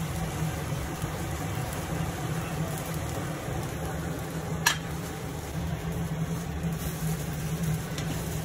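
Steady low machine hum in a home kitchen, with one sharp tap about halfway through, likely the wooden spatula knocking the steel pan.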